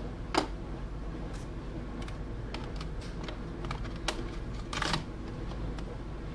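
Light plastic and metal clicks and knocks as a laptop's slim optical drive is slid out of and back into its bay. There is a sharp click about half a second in and a short scraping rasp near five seconds.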